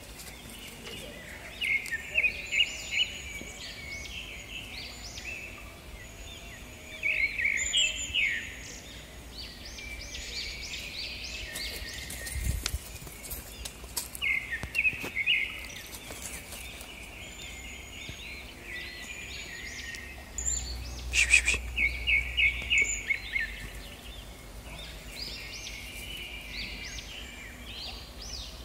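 Small birds chirping in quick, busy runs of short high notes, coming in several clusters over steady outdoor background noise, loudest a little past two-thirds of the way through. A single brief low thump near the middle.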